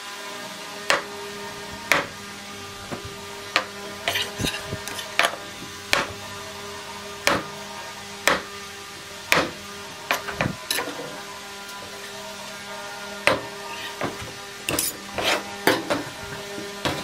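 Chef's knife cutting through a block of tofu and striking a wooden cutting board: sharp knocks, roughly one a second with some quicker runs of small taps. A steady humming tone sits underneath.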